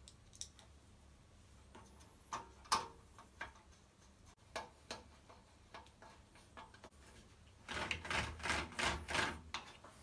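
Scattered small clicks and taps of screws and a screwdriver being handled against a metal frame, then a dense burst of rattling and handling noise near the end.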